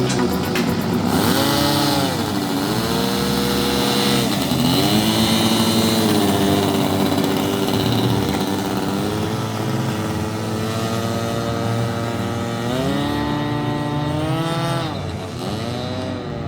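Engines of a radio-controlled Cessna 310 twin model airplane running in flight, their note dropping and climbing again several times as the plane passes and the throttle changes.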